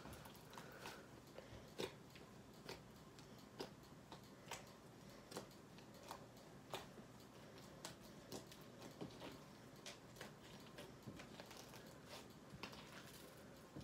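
Faint sharp clicks and pops of jelly-cube slime being pressed and squeezed by hand, about one click a second.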